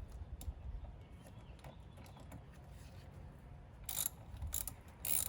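A ratchet wrench clicking in a few short strokes from about four seconds in, loosening the clamp nut of a car battery terminal.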